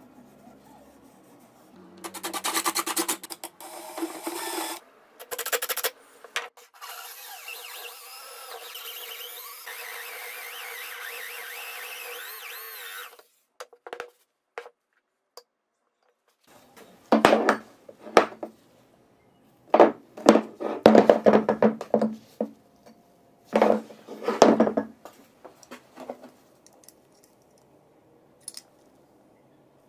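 Hand tools working a plywood block: bursts of scraping and rubbing on wood, with a steadier hiss in the first half and a cluster of strokes about two-thirds of the way through.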